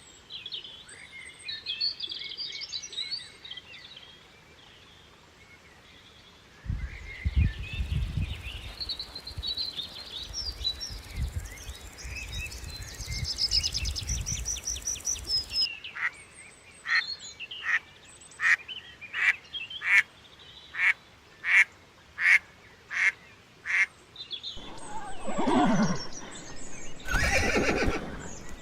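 A run of farm animal sounds joined by cuts. First there is high chirping and peeping, then about a dozen short calls in an even rhythm, and near the end a horse whinnies loudly, falling in pitch.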